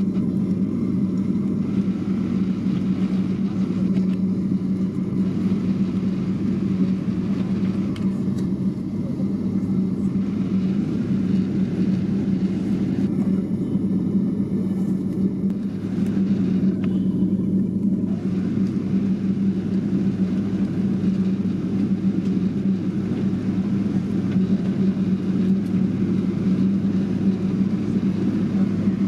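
Steady low drone of a vehicle heard from inside it, with a constant hum underneath.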